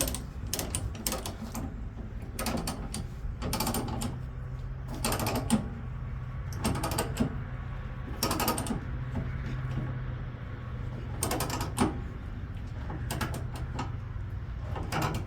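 Ratchet chain binder being cranked to tighten a tie-down chain, its pawl clicking in irregular runs with chain links clinking, over a steady low hum.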